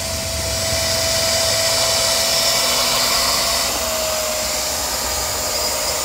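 Suction motor of a wet carpet extractor running steadily as it pulls water out of a soaked mat: a constant whine over a rush of air, dipping slightly in pitch partway through.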